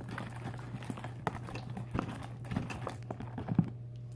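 Sticky slime being kneaded by hand, giving irregular wet clicks and squelches; the freshly activated slime is still clinging to the fingers as it comes together. A steady low hum lies underneath.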